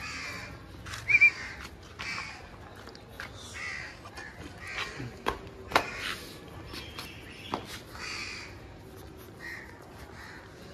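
Crows cawing over and over, a harsh call about every second, the loudest about a second in. A few sharp clicks sound around the middle.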